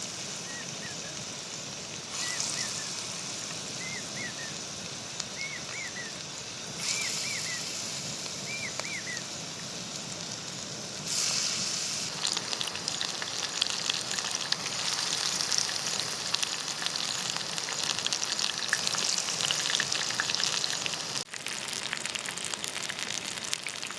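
Chicken frying in oil in a pan, hissing steadily and then sizzling louder with dense crackling from about halfway. A few short high chirps repeat every second or so in the first half.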